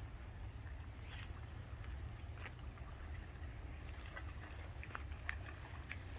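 Small birds giving short, high rising chirps every second or so, with a few faint ticks, over a steady low rumble.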